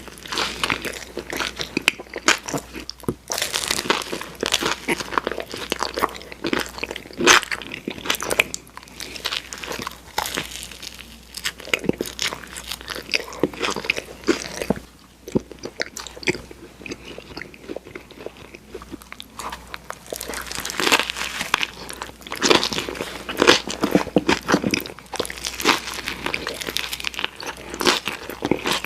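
Close-miked bites and chewing of a footlong Subway tuna sandwich, with crunching from the bread and filling. The crunches come in close runs, easing off for a few seconds around the middle before picking up again.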